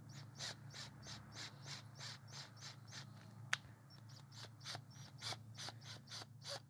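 A steel M4 tap, turned slowly by a drill, cutting a thread into a drilled hole in forged steel, making faint rasping creaks about three a second. One sharp click comes about three and a half seconds in.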